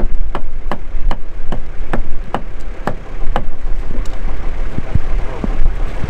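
Recovery crane truck's engine running with a low rumble, overlaid by evenly spaced sharp clicks, about two or three a second, through the first half that then thin out.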